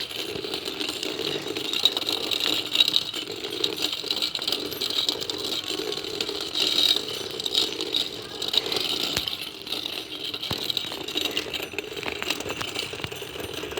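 Steady rattling and clattering, scattered with small clicks.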